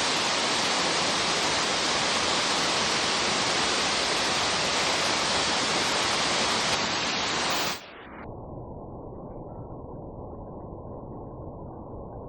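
Waterfall pouring, a loud steady rush of falling water. About eight seconds in it cuts off suddenly, and a quieter, duller steady rumble takes its place.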